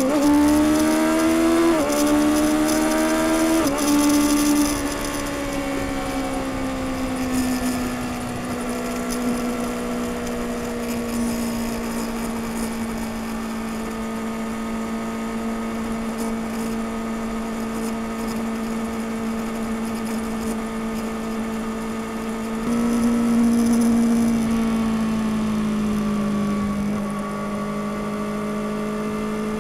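2021 Kawasaki Ninja ZX-6R's inline-four through its stock exhaust, heard from the rider's seat. It revs up and the pitch drops twice as it shifts up in the first few seconds, then holds a steady cruising note. About two-thirds of the way in, the note jumps higher and louder for a couple of seconds, then sinks as the bike slows.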